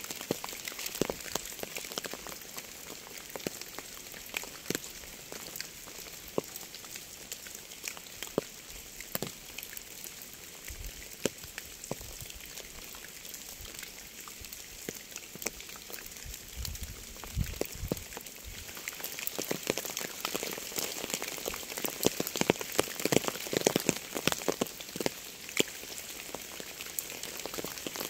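Steady rain falling, with many separate drops ticking sharply on a surface over an even hiss. The drops grow denser and louder in the last third, and a brief low rumble comes a little past halfway.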